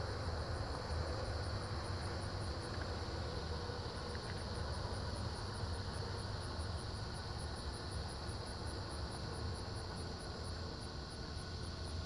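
Steady outdoor background: a low rumble with an even, high insect drone over it.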